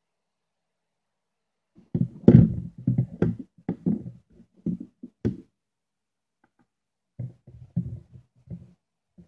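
Irregular knocks, thuds and clicks of handling: the multimeter's plastic case, its battery wires and tools moved against a wooden table close to the microphone. A busier run starts about two seconds in, then a quieter cluster of bumps comes near the end.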